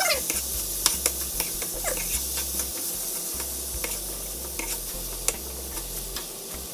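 Onions, ginger-garlic paste and tomatoes sizzling in a frying pan with a steady hiss, while a spoon stirs them, clicking and scraping against the pan now and then.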